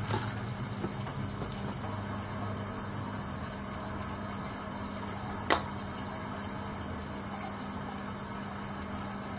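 Steady low hum under a high hiss, with a short knock at the very start and one sharp click about five and a half seconds in.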